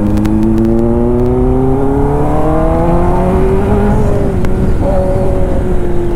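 Kawasaki ZX-10R's inline-four engine through an Arrow exhaust, accelerating hard in one gear: the engine note rises steadily for about four seconds, then drops gently as the throttle is eased.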